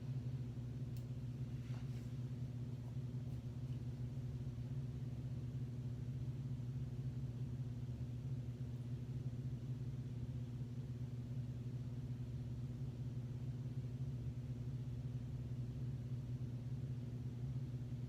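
Steady low hum with no change in level, and a couple of faint clicks in the first two seconds.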